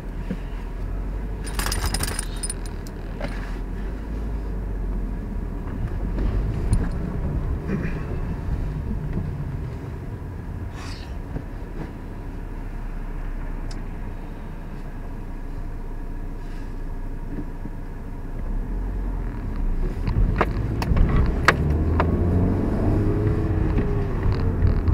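Car engine and road noise heard from inside the cabin as the car drives off, a steady low rumble that gets louder near the end. A brief metallic jangle about two seconds in, with scattered clicks and knocks.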